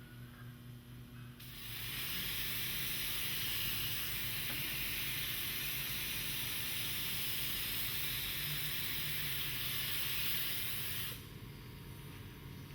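Continuous spray hiss, starting about a second and a half in and cutting off suddenly about eleven seconds in: adhesive being sprayed to glue upholstery foam.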